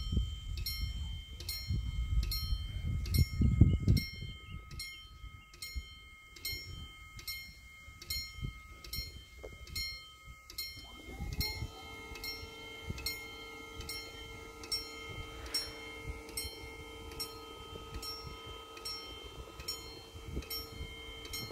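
Italian level-crossing bell ringing in a steady rhythm, about two strokes a second. About eleven seconds in, a steady hum joins as the barrier motor lowers the red-and-white booms. A low rumble is loudest in the first four seconds.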